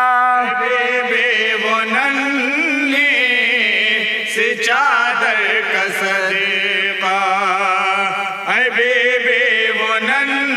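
Men's voices chanting a Shia devotional verse in long, wavering held notes that shift in pitch several times.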